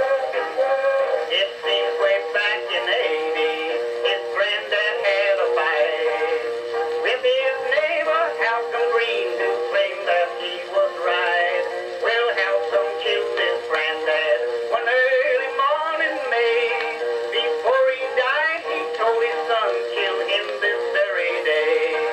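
An Edison Blue Amberol cylinder recording playing: a man singing over instrumental accompaniment, the sound thin, with almost no bass.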